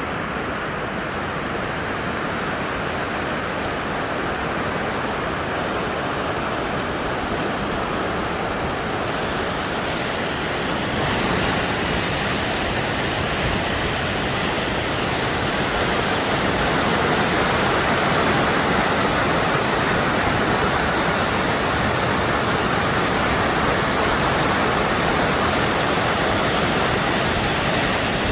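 Waterfall pouring, a steady, even rush of falling water that grows louder and brighter about eleven seconds in.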